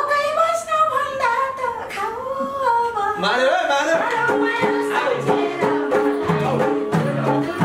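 A woman singing a Nepali folk dohori melody, her voice gliding and bending. About three seconds in, instrumental accompaniment with a steady repeating beat comes in under the singing.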